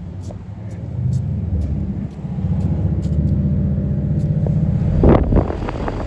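Temperzone outdoor air-conditioning condensing units running: a steady low hum with a fine even throb, growing louder about a second in. Near the end comes a brief loud rush of air on the microphone from the fan blowing up through the top guard.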